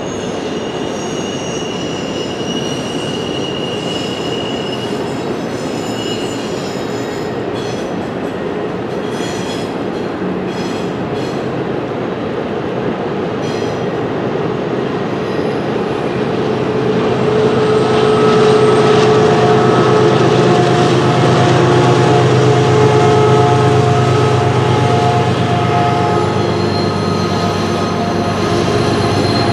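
Double-stack intermodal freight cars rolling across a stone-arch viaduct: a steady rumble of wheels on rail with high wheel squeal at several pitches and a few clicks. Partway through it grows louder, with a heavier rumble and squeals at new, lower pitches.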